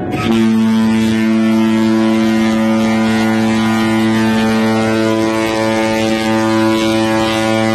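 A cruise ship's horn sounding one long, steady, low blast that starts suddenly, with wind on the microphone.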